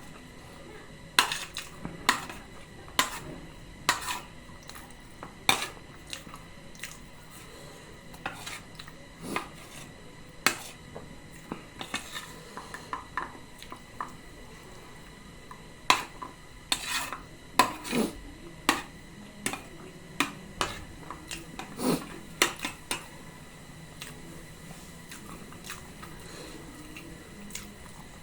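A spoon clinking and scraping against a bowl while eating: irregular sharp clinks, a few seconds apart at first, then a busier run in the middle.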